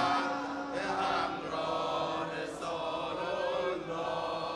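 Male congregation chanting a Muharram mourning refrain softly in unison, over a steady held low note.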